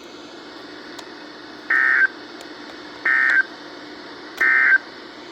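Emergency Alert System end-of-message signal: three short identical bursts of buzzy SAME digital data tone, about a second and a half apart, marking the end of the broadcast warning. A faint steady hum lies beneath them.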